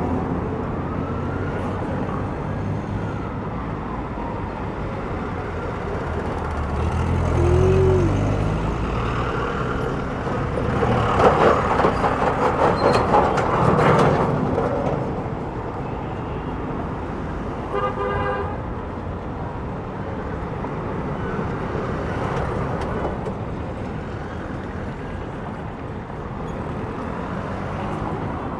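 Busy city street traffic: a steady wash of cars passing. A vehicle's low engine rumble swells and passes about a quarter of the way in, the traffic grows louder for a few seconds near the middle, and a car horn gives one short toot a little later.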